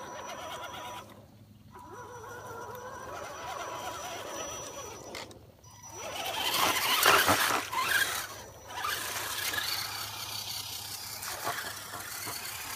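Electric drive motor and gearbox of a radio-controlled Axial SCX10 scale truck whining as it crawls through wet grass and mud, the pitch rising and falling with the throttle. It drops out briefly twice, and the loudest stretch comes about six to eight seconds in.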